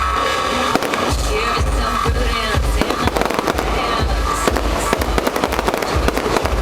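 Fireworks bursting and crackling in quick, dense succession over loud music with a pulsing bass beat.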